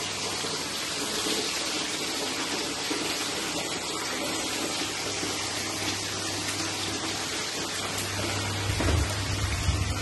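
Chicken pieces deep-frying in hot oil in a wok: a steady, dense sizzle, with a low hum underneath and a few low bumps near the end.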